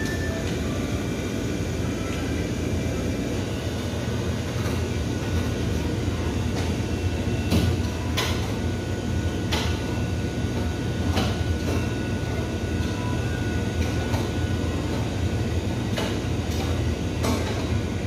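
Steady low rumble of shop machinery noise, with a few scattered sharp clicks as a metal ice cream scoop digs into and knocks against steel pans in a display freezer.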